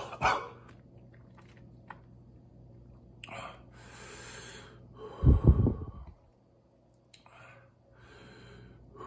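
A man breathing hard through his mouth and nose against the burn of a very hot sauce he has just swallowed, with a loud, low throaty sound about five seconds in.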